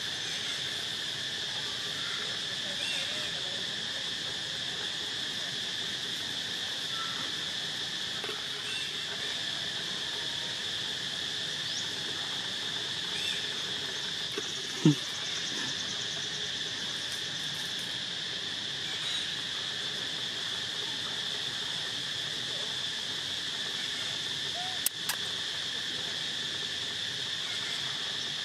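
Steady, high insect chorus that continues without a break. About halfway through comes one brief, loud sound that slides down in pitch, and later a single sharp click.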